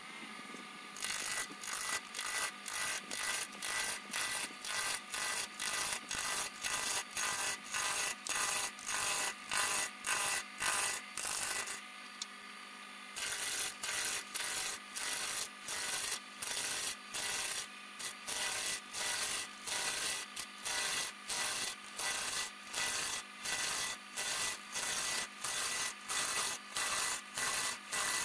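A hand tool stroked back and forth on wood at an even pace, about three strokes a second, with a short pause near the middle, over a steady low hum.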